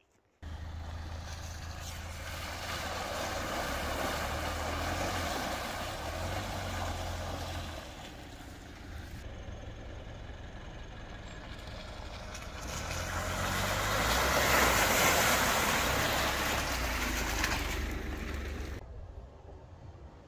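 A vehicle driving on the road: steady rushing tyre and wind noise over a low engine drone, swelling to its loudest about two-thirds through and dropping abruptly near the end.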